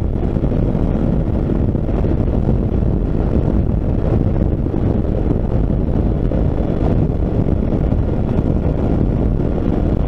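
Steady wind rush over the microphone mixed with motorcycle engine and tyre noise while riding on a highway, even in level throughout.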